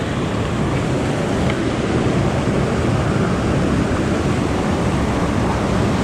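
Mountain stream water rushing steadily, a loud unbroken noise of fast-flowing water.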